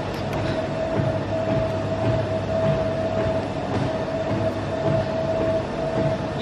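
Steady mechanical rumble with a constant mid-pitched hum running through it, unchanging throughout.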